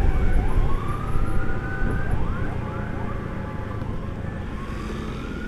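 Emergency sirens from the escorted ambulance and its escort wailing in overlapping rising sweeps, over a low steady rumble of motorcycle road noise. The sirens grow fainter after about three seconds.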